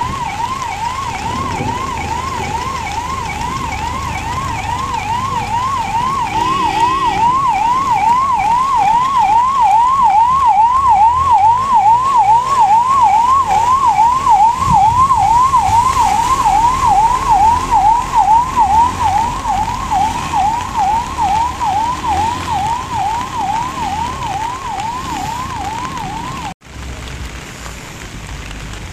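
Ambulance siren in fast yelp mode, a wail rising and falling about twice a second, growing louder as the ambulance comes closer, then fading and stopping abruptly near the end.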